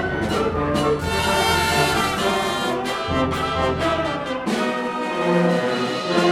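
A concert band playing a full-ensemble passage, with brass instruments to the fore over a low bass line.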